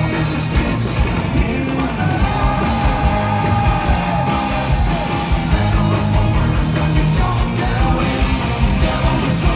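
Live heavy metal band playing loud, with guitars and singing, and one long held note in the middle.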